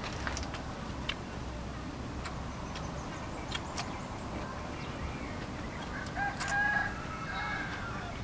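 A rooster crowing once, a pitched call of about two seconds starting about six seconds in, over a steady background with scattered small clicks.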